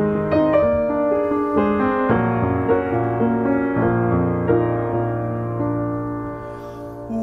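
Solo piano interlude in an art song accompaniment, with the tenor silent: a flowing run of chords and single notes that grows quieter toward the end.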